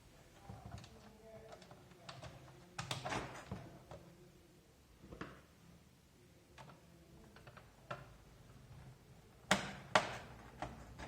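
Irregular clicks and knocks of small plastic keyboard parts being handled: a cluster about three seconds in, a few lighter ticks after it, and two loud sharp clicks near the end.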